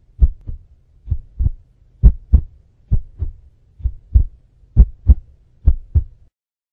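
Heartbeat sound effect: seven double thumps, lub-dub, a little under one a second, stopping about six seconds in.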